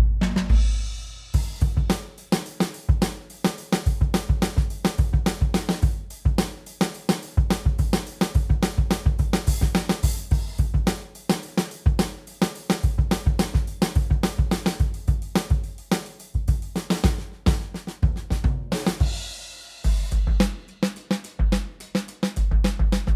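Sampled acoustic drum kit from Native Instruments' Abbey Road Drums library playing a steady groove of kick, snare and hi-hat. Cymbal washes come at the start and again about 19 seconds in. The kit is heard dry, with no compression or EQ.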